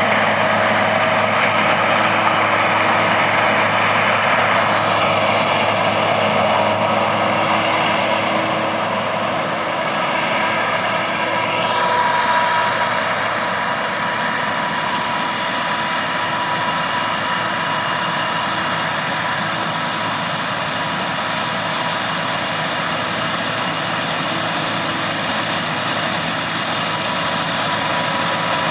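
Massey Ferguson 9895 combine running steadily while harvesting corn: a dense, even machine drone with several steady whines on top. One higher whine shifts in pitch about five to twelve seconds in, and the sound settles a little quieter after that.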